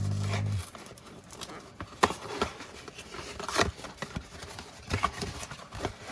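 Scattered clicks, taps and rustles of a cardboard box and tape roll being handled and opened, after a brief low hum that stops under a second in.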